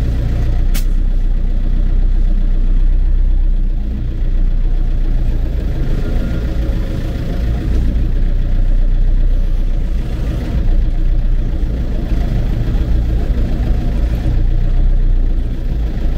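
Mercedes-Benz MB-trac tractor's diesel engine running steadily under way, with a single sharp click about a second in.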